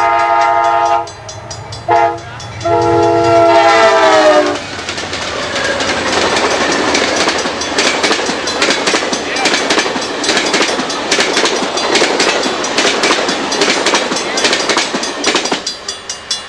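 Amtrak diesel locomotive's multi-note air horn: a blast, a short toot, then a long blast whose pitch falls as the locomotive passes. A passenger train of Superliner cars then rolls by with steady rushing rail noise and rapid clickety-clack of wheels over rail joints, which drops away suddenly near the end as the last car clears; a grade-crossing bell then rings in a steady beat.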